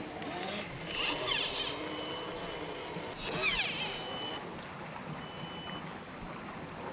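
Small electric motor and geared drivetrain of an Axial SCX10 III radio-controlled rock crawler whining as it climbs over rocks. The pitch sweeps up and down twice as the throttle is worked, with a steady high whine between.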